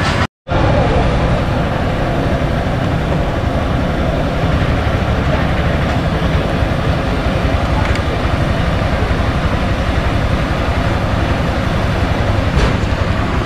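Samosas deep-frying in a large iron kadai of hot oil: a steady sizzling and bubbling over a low rumble. A light knock, the skimmer touching the pan, comes near the end.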